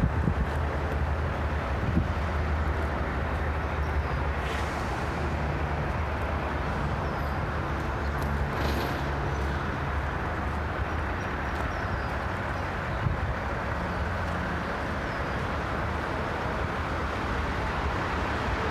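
Heavy diesel truck engine idling steadily, a constant low rumble.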